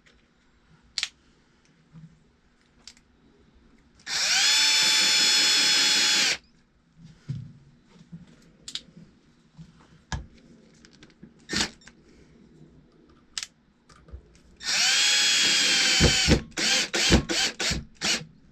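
Power drill driving wood screws through a lathe faceplate into a log. There are two steady runs, each spinning up in pitch and then holding, and the second ends in several short trigger bursts as the screw seats.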